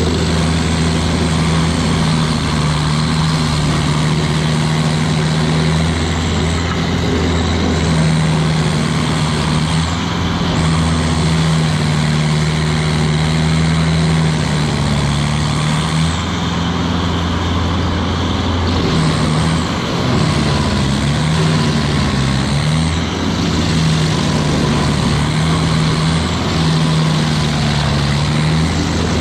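Carlton 8018 stump grinder running at full throttle, its cutter wheel grinding into an oak stump. There is a steady engine note, whose pitch wavers and dips briefly about two-thirds of the way through as the wheel bites.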